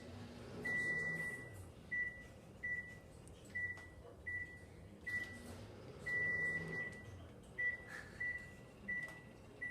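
Microwave oven keypad beeping about a dozen times at one pitch, mostly short beeps with two longer ones, as it is set and run one second at a time. A faint low hum of the oven runs under the beeps.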